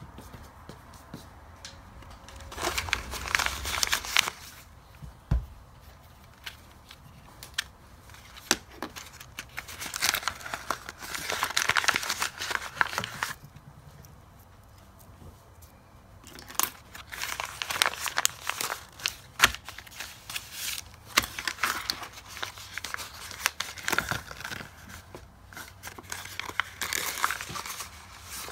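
Paper blind bags crinkled, crumpled and torn open by hand in several stretches of rustling, with scattered sharp clicks and taps between them.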